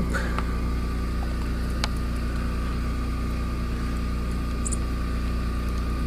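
Steady low mechanical hum of a running machine, with a thin steady whine above it. A faint click about two seconds in and a single brief high chirp about three quarters of the way through.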